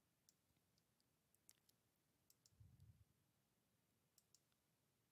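Near silence, broken by a few faint, sharp computer-mouse clicks.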